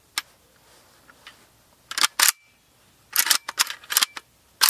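Sharp metal clicks and clacks of an AKS-74U carbine's action being worked by hand: a single click, a pair about two seconds in, then a quick cluster of clacks a second later.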